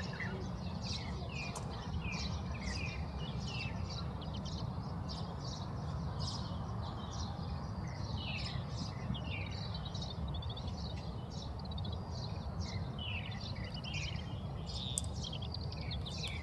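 Oriental greenfinches calling: many short, quick chirps and twitters, some in fast runs, over a steady low background rumble.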